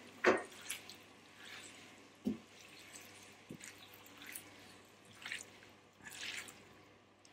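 Spaghetti being tossed with silicone-tipped tongs in a frying pan of hot olive oil: wet squelching and short bursts of sizzling, with a few sharp knocks of the tongs against the pan, the loudest just after the start. The sizzle is the pasta "singing" as it finishes cooking and mixes with the oil.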